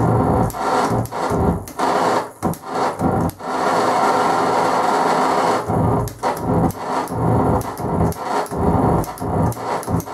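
Vinyl record scratched by hand on a turntable, chopped into rapid short strokes. About three and a half seconds in there is one longer unbroken stretch lasting about two seconds, then the quick choppy cuts resume.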